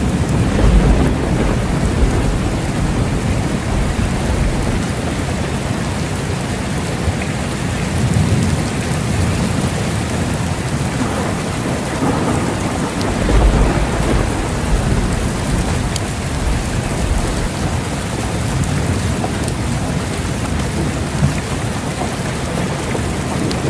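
Steady heavy rain falling, with low rolls of thunder swelling up about a second in, again around eight seconds in, and most strongly around thirteen seconds in.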